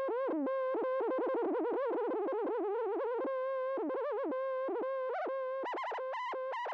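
Roland MC-909 groovebox sounding a single synth tone whose pitch warbles and swoops as hands wave over its D-Beam infrared controller, a theremin-like wobble. Near the end it breaks into quick, brighter chopped notes.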